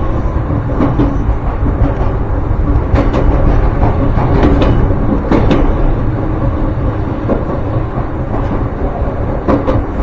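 Ryutetsu Nagareyama Line electric train running: a steady, loud rumble broken by irregular sharp clacks of the wheels over the rail.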